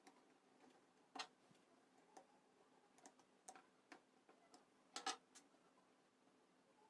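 Faint, irregular clicks and taps of small hard objects. The loudest comes about a second in, and a close pair comes around five seconds in.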